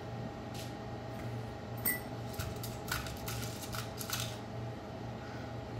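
Light metallic clicks and clinks, about seven scattered taps, as small metal busbar plates are handled and set onto battery cell terminals, over a steady low hum.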